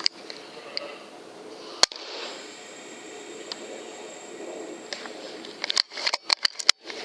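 A single sharp crack of an air rifle shot about two seconds in, followed near the end by a quick run of sharp clicks.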